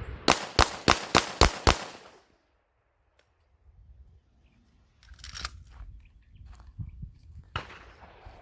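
Six pistol shots fired in a fast string, a bill drill, about a quarter to a third of a second apart, each with a short ringing echo. After a few seconds of quiet come scattered faint knocks and rustles.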